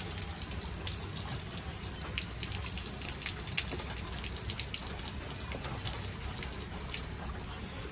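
Steady rain falling, with a scatter of sharp drops and drips.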